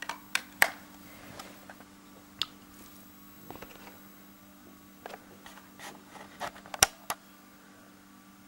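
Handling noise from a camcorder: scattered clicks and knocks, the loudest near the start and about seven seconds in, over a faint steady hum. The blinking LED circuit itself is silent.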